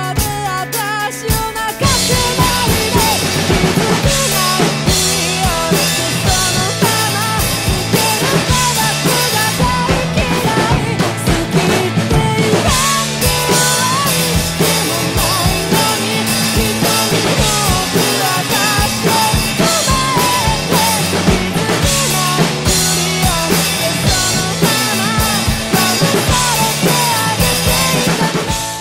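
Acoustic drum kit played along to a pop-rock band recording, with kick, snare and cymbals over bass, guitars and a sung vocal line. The music fills out with the full band about two seconds in.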